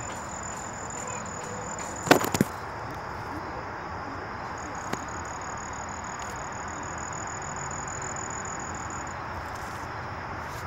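Outdoor background hiss with a thin, steady, high insect drone, like a cricket, that breaks off about two seconds in and comes back a couple of seconds later. A brief clatter of knocks about two seconds in, from the handheld phone being handled among the vine leaves.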